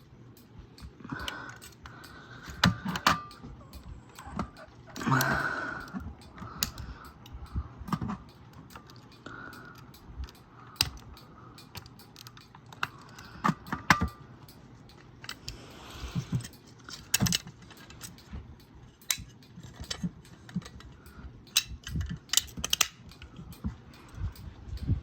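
Fire alarm pull stations being worked by hand: irregular sharp clicks and clacks of handles and covers being pulled and reset, with a louder rattling stretch about five seconds in.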